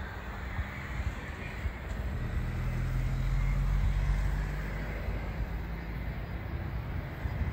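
Distant whine and rumble of a Cessna Citation Bravo's twin turbofan engines as the jet taxis, over a steady low rumble that swells for a few seconds near the middle.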